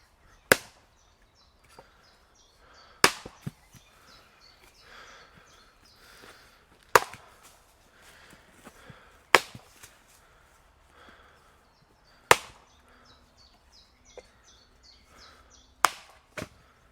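Axe blows chopping into wood: six hard, sharp strikes spaced a few seconds apart, with a few lighter knocks in between.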